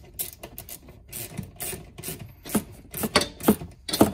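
Socket ratchet clicking in short, irregular strokes as small terminal nuts on a golf cart solenoid are snugged down tight, with the loudest clicks near the end.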